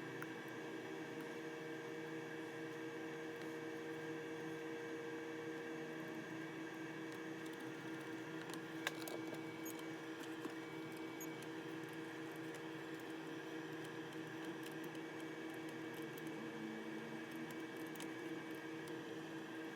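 Steady electrical hum with a faint hiss, holding a few even tones, like bench equipment running, with a few light clicks and one sharper tick about nine seconds in.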